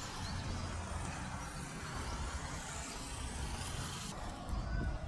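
Steady rumble of road traffic passing, with no single vehicle standing out.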